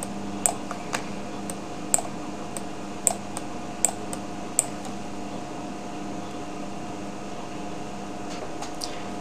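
Computer mouse clicking, about nine short sharp clicks over the first five seconds and a couple of fainter ones near the end, over a steady hum.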